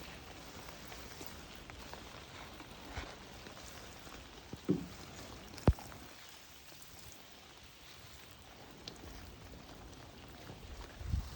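Steady light rain pattering, with two sharp knocks about four and a half and five and a half seconds in, the second the loudest sound.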